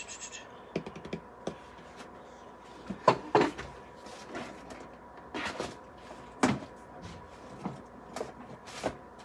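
Scattered knocks, clatter and rustling of things being moved about while someone searches through craft supplies, with louder knocks about three seconds in and again past six seconds.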